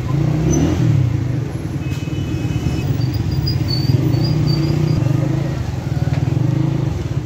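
A motorcycle engine running at low speed close by, a steady low hum with a fast even pulse.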